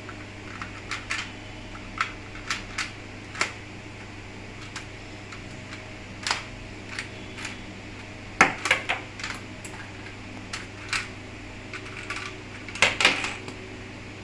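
LEGO plastic bricks clicking and clacking as 8-gauge LEGO shotgun shells are loaded into a custom LEGO shotgun. Single clicks come every second or so, with louder bursts of rattling clacks about eight seconds in and again near the end.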